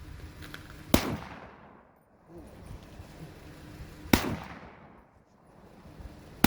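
Draco AK pistol firing 7.62×39 rounds one at a time: two loud shots about three seconds apart, a third right at the end, each with a long echoing tail.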